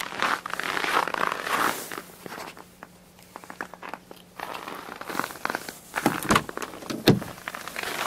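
Footsteps crunching in frozen snow, then clicks and knocks as a car door is opened and someone climbs into the seat, with a sharp thump about seven seconds in.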